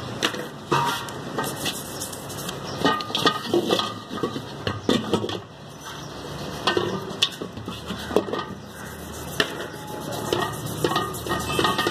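A car AC compressor from a Toyota Corolla 1.3 being scrubbed with a stiff brush over a basin: irregular scraping strokes with frequent clinks and knocks as the metal body is turned and bumps the basin.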